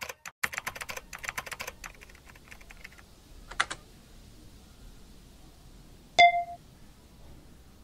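Typing on a computer keyboard: quick clattering keystrokes for about three seconds, then a couple more clicks, followed about six seconds in by a single short bright ding that rings briefly.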